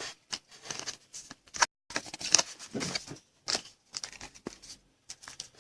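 Trading cards and their packaging being handled: irregular crinkles, rustles and small clicks.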